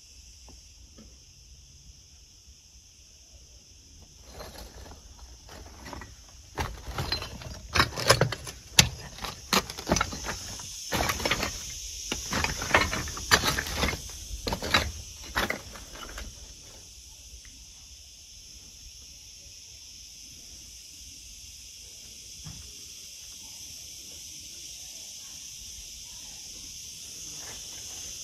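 Insects chirring steadily in a high, even band. From about four to sixteen seconds in, a run of sharp clicks and knocks lies over it and is the loudest sound.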